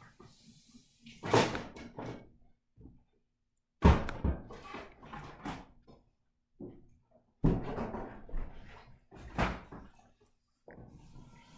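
Several sudden household knocks and thumps with short gaps between them, the loudest about four seconds in.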